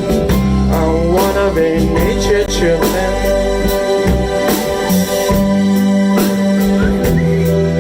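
A band playing a song: a voice sings a line over sustained chords, bass and drums.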